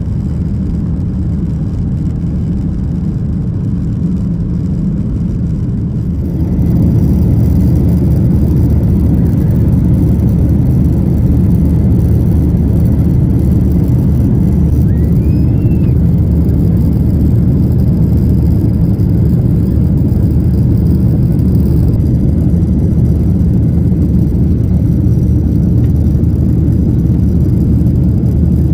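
Steady low roar of a Boeing 737-800's CFM56 jet engines and rushing air, heard from inside the cabin. It gets louder and fuller about six seconds in, then holds steady.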